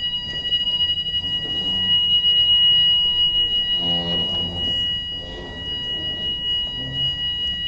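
Fire alarm sounding a steady, continuous high-pitched tone: a false alarm set off by the hotel sauna. Faint voices murmur underneath.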